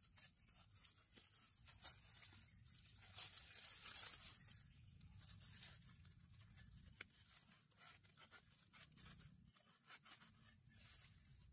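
Faint rustling and scraping as a knife blade cuts into a green plant shoot at ground level among leaves and dry litter, with irregular small crackles and snaps.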